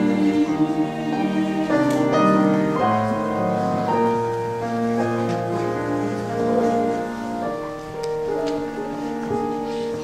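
Girls' choir singing slow, sustained chords that move step by step, growing softer toward the end.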